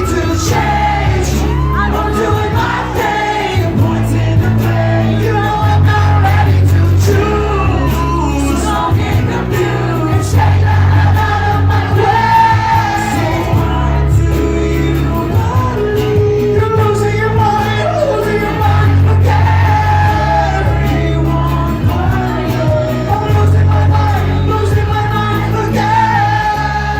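Live band playing a rock song in an acoustic set, with singing over a steady, repeating bass line and some crowd shouting along.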